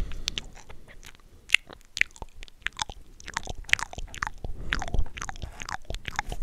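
Cupped mouth sounds close into a microphone: quick, irregular clicks and pops made by the mouth, with a hand cupped around it, and a few low bumps.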